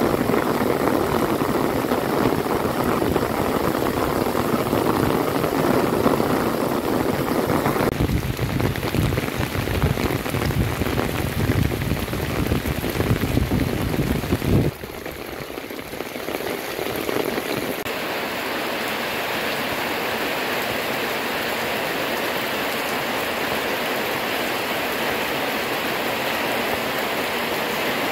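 Heavy rain pouring onto a flooded rice-field pool, a dense steady hiss. About halfway through, the sound drops abruptly to a quieter, higher, even hiss of rain falling on grass and tiled house roofs.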